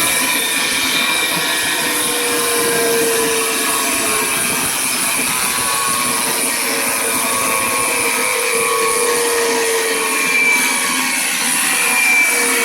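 Rebuilt aircraft engine starter motor running steadily on 24 volts, an electric motor hum with a whining gear note that wavers slightly in pitch.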